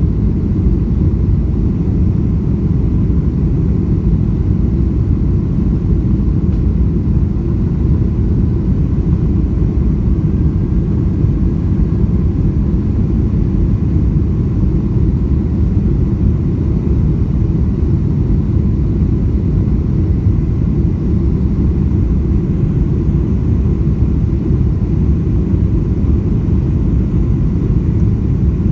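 Steady, loud low rumble of engine and airframe noise inside the cabin of a Boeing 747-400 airliner, heard from a rear window seat. It holds even, with no rise or change.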